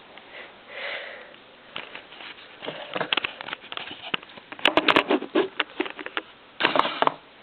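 Dog sniffing in quick runs of short sniffs, with a few sharp clicks about halfway through.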